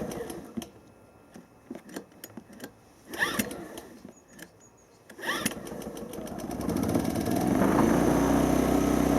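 Hyundai EFI2500SEI inverter generator being pull-started by its recoil cord. There are three pulls, a few seconds apart, and the engine catches on the third, about five seconds in, then runs up to a steady running note. It is not the easiest thing to start on manual.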